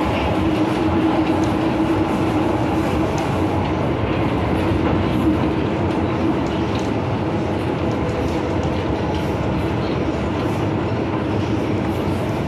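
MTR Kwun Tong Line M-Train heard from inside the carriage while running between stations: a steady rumble of wheels on rail with a constant low hum.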